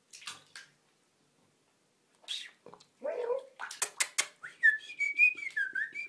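A few short splashes and knocks as cats move about in shallow bathwater, then someone whistles a short, wavering tune through the second half.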